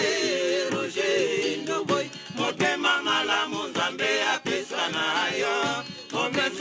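A group of men singing together in chorus.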